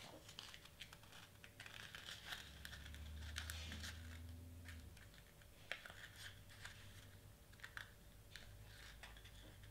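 Faint crinkling and small clicks of glitter cardstock being bent and pressed as its triangular tabs are pushed into slits to close a small paper cone. A faint low hum comes in for a couple of seconds midway.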